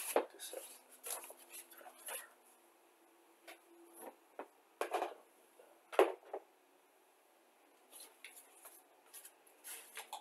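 Scattered light clicks, taps and rustles of plastic model-kit parts and tools being handled, with one sharper knock about six seconds in.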